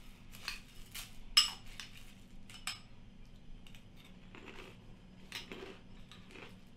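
Metal spoon clinking against a ceramic bowl while someone eats, a run of scattered clinks and scrapes. The loudest is a ringing clink about a second and a half in.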